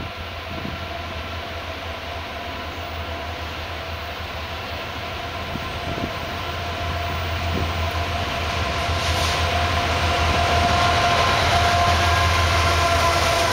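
Diesel locomotives led by a GE AC44CW, with two EMD SD40s behind, approaching at the head of a loaded autorack freight train: a low engine rumble with a steady whine over it. It grows steadily louder through the second half as the lead unit draws level.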